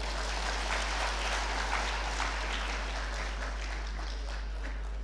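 Large audience applauding, a dense, even clapping at a steady level.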